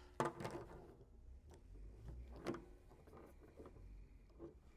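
Faint handling noise of electrical test leads and connectors being handled and plugged together: rustling and small clicks, the loudest rustle about a quarter second in and a single click about two and a half seconds in.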